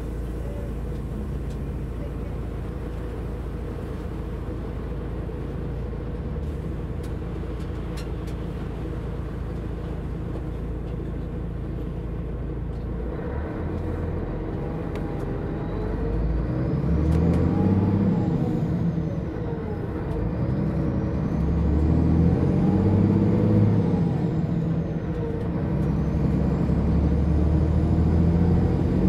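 Setra S 315 UL bus engine idling steadily, then, a little under halfway through, pulling away and accelerating. The engine note climbs, drops at each gear change of the manual gearbox, and climbs again, three pulls in all, getting louder.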